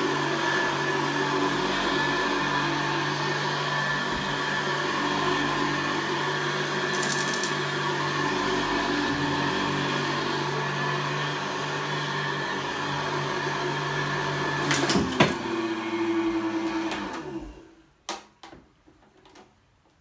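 Vintage Hoover Convertible upright vacuum cleaner running steadily with a motor hum. About three quarters of the way in there are a couple of sharp clicks, and the motor winds down and stops, leaving only a few faint knocks.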